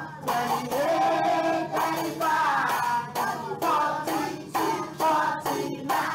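A seven-times-table song for children: a singing voice over a music backing track, in short phrases with brief breaks between them.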